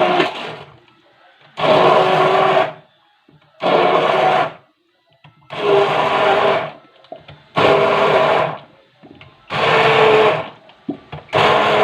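Electric blender grinding lemons, run in short pulses: about a second on, a second off, six times in a row.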